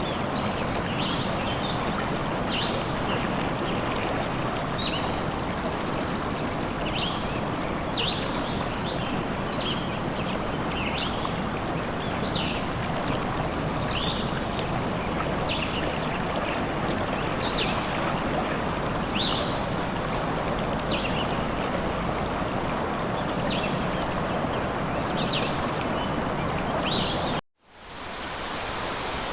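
Nature ambience: steady running water with small birds chirping in short calls every second or so. Near the end it cuts off abruptly and a different steady rushing noise begins.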